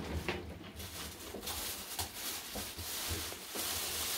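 Plastic bags rustling and crinkling, with a few light knocks, as hands rummage through an open refrigerator drawer.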